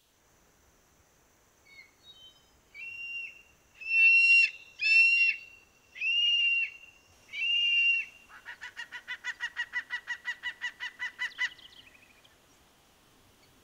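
Bird calls: a few short faint notes, then four loud drawn-out calls, then a fast run of about twenty short notes, roughly six a second, that stops abruptly.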